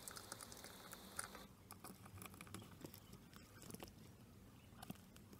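Near silence with faint small clicks and rustles: fingers handling a cardboard clock face while tightening the small nut on the quartz clock movement's shaft.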